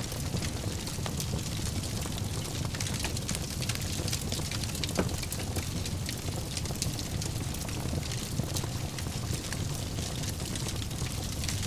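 Wood fire crackling in a fireplace: a steady low rumble of flames under many small pops and snaps, with one sharper snap about five seconds in.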